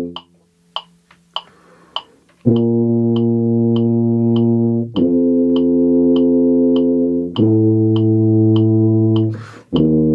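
Tuba playing sustained whole notes, one per four metronome clicks, over a steady metronome ticking about every 0.6 seconds. An audible breath is taken before the first note, about two and a half seconds in, and another before the last note near the end.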